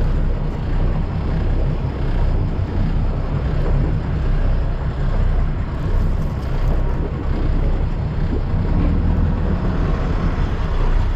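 Sport-fishing boat's engine running steadily under way, a continuous low rumble mixed with wind and water noise.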